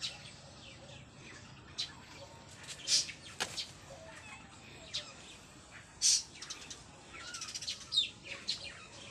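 Birds chirping: short, high chirps at irregular intervals, some sliding downward, with a quick run of them near the end.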